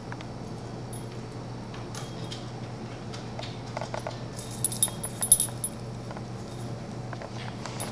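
Golden retriever puppy moving about on a hardwood floor by a plastic gate: scattered light clicks and taps, with a cluster of sharper, ringing clicks about halfway through, over a steady low hum.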